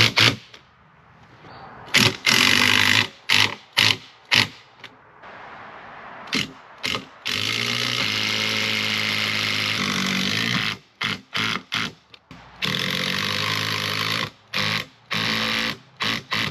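Power drill driving screws into wood framing in a string of start-stop bursts, most under a second and the longest about three seconds in the middle, with short pauses between.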